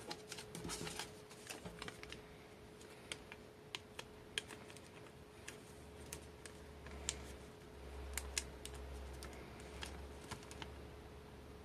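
A sheet of origami paper being handled and folded between the fingers: scattered crisp crackles and light taps of the paper. A faint steady hum runs underneath.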